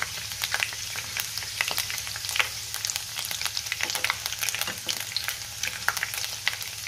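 Nylon sago pearls (sabudana) deep-frying in very hot oil, sizzling steadily with a dense run of small crackles and pops, as a wire-mesh strainer stirs them through the oil.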